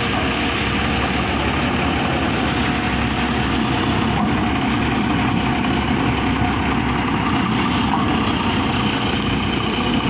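Diesel engine of a container-hauling tractor truck running steadily at idle.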